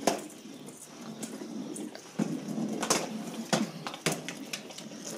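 Westminster Weazel Ball, a battery-driven hard plastic ball, rolling across a hardwood floor with its motor running. Its shell knocks irregularly against the floor and baseboard, roughly every half second to a second.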